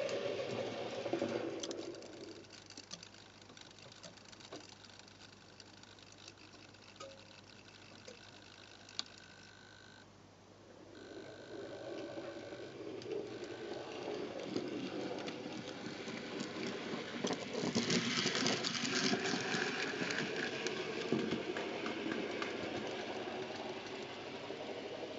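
Hitec HS-311 hobby servos swinging the barrier arms of a model-railway level crossing, a buzzing, rattling mechanical run. It drops low a couple of seconds in, builds up again past the middle and is loudest about three-quarters of the way through.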